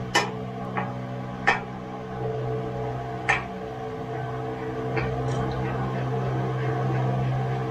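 A steady low mechanical hum that runs throughout and grows a little louder past the middle, with a few sharp clicks and knocks.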